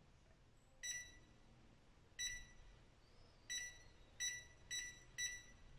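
Touch keypad of a Maadok X1 smart door lock beeping once per key press as a passcode is entered: six short, high beeps at uneven intervals.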